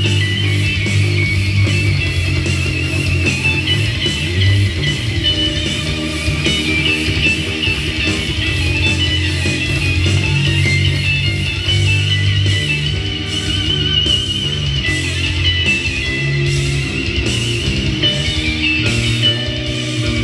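Heavy rock song on electric guitar played through an EarthQuaker Devices Astral Destiny octave reverb pedal, over sustained bass notes, with a wavering high shimmer on top. A regular pulsing beat in the high end joins about twelve seconds in.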